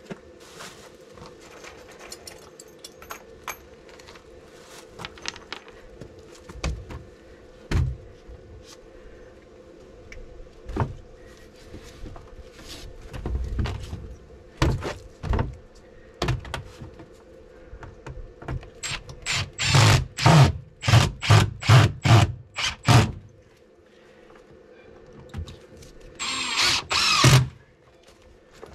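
Hand work on a plywood box: scattered clicks and thumps, then a quick run of about nine sharp knocks past the middle, and a cordless drill driving a screw for about a second and a half near the end. A faint steady hum runs underneath.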